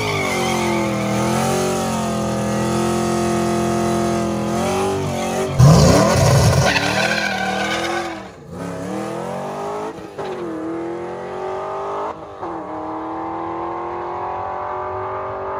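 Chevrolet Camaro's engine held at raised revs on the drag strip's start line, then launching hard about five and a half seconds in with a sudden loud burst. It then pulls away through three upshifts, each a rising pitch that drops at the shift.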